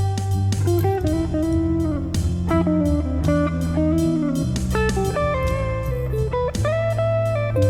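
Instrumental jazz fusion: an electric guitar plays a melody with bent notes over a steady electric bass line and a programmed drum and percussion backing.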